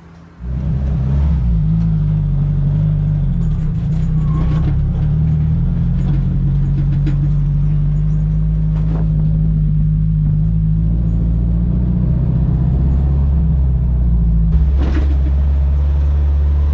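Turbocharged SR20DET inline-four of a Nissan S14 240SX running steadily at an even, low engine note that sets in abruptly about half a second in.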